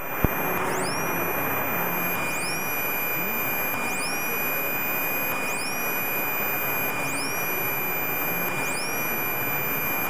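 Cessna 172E's six-cylinder Continental O-300 engine and propeller droning steadily in the cabin in flight. A faint steady high tone and a rising electronic chirp, repeating about every one and a half seconds, run over it.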